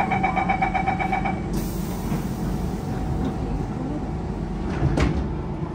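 Door-closing chime of a Siemens C651 train beeping rapidly for about a second and a half, over the steady hum of the train heard inside the car. A single sharp knock comes about five seconds in.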